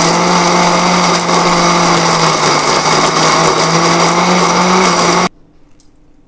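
Electric mixer grinder running at speed, its steel jar grinding peanuts, coriander and green chillies into chutney; the motor hum dips slightly midway, then the grinder is switched off about five seconds in and stops abruptly.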